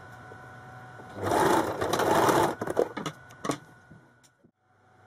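Electric sewing machine sewing in a zip: one short run of stitching lasting about a second and a half, starting about a second in, then a few clicks as it stops.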